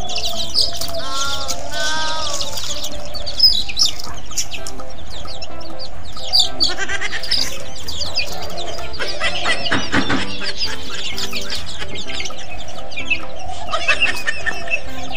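Young chicks peeping, many short high chirps in quick runs, over steady background music.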